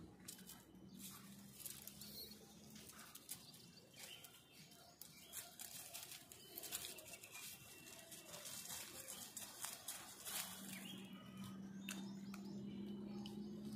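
Faint, irregular rustling and crackling of dry leaf litter and twigs being stepped through. A steady low hum comes in near the end.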